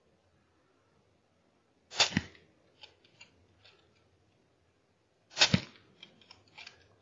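Two suppressed .308 Winchester rifle shots with subsonic ammunition, about three and a half seconds apart, each a sharp report with a second crack just after it. Each shot is followed by a few lighter metallic clicks of the bolt being cycled.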